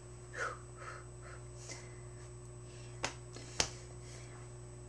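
A few soft whispered sounds in the first second and a half, then two sharp clicks about half a second apart around three seconds in, over a steady low electrical hum.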